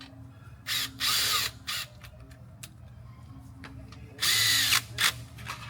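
Cordless power driver spinning the oil pan's T30 bolts into the engine in short bursts: three quick runs about a second in, then a longer run and a short blip near the end.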